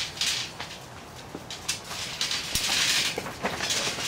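Paper diagram sheets rustling as they are handled, in irregular hissy bursts with a few sharp clicks. The rustling is densest a little past the middle.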